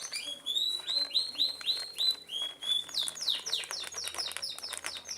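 A bird singing: a run of short whistled notes, then, about three seconds in, a quicker series of falling notes.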